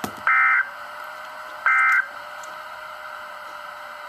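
Emergency Alert System end-of-message data tones on a weather radio broadcast: two short, shrill warbling digital bursts about 1.4 s apart, over a steady radio hiss. Together with one burst just before, they make the three-burst sequence that marks the end of an alert message.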